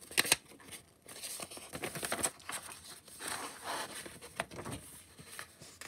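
A comic book's newsprint page being turned and pressed flat by hand: paper rustling and crinkling in several swells, after a sharp flick about a quarter second in.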